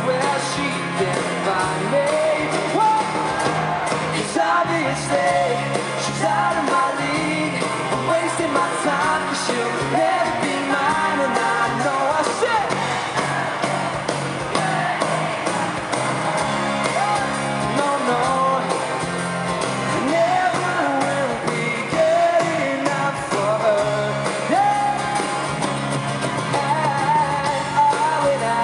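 Live pop-rock band playing with acoustic guitar, electric guitar, bass guitar and drums, with singing over the top, recorded from the arena audience.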